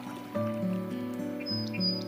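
Instrumental background music: a melody of held, sustained notes.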